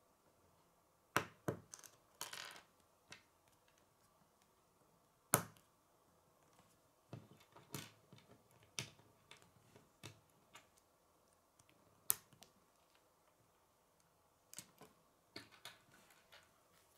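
Plastic K'nex rods and connectors clicking and snapping together as they are fitted by hand: a dozen or so separate sharp clicks with pauses between them, the loudest about five and twelve seconds in.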